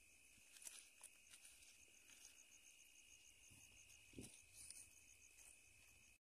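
Near silence: faint night insects, a steady high drone joined for a few seconds by a fast, even ticking chirp, with a few faint crackles from a wood fire.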